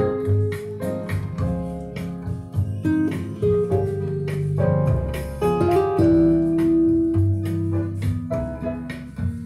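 Guitar music played through a small TDA2003 12-volt mono amplifier driving a speaker cabinet, loud and with heavy bass.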